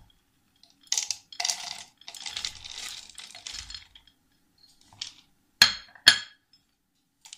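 Roasted peanuts poured from a bowl into a grinder jar, rattling in for about three seconds. Two sharp knocks about half a second apart follow near the end.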